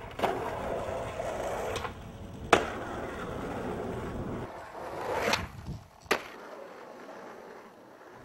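Skateboard wheels rolling, with a sharp clack of the board about two and a half seconds in. The rolling goes on and grows louder near five seconds, then another sharp clack comes about six seconds in, and the rolling stops.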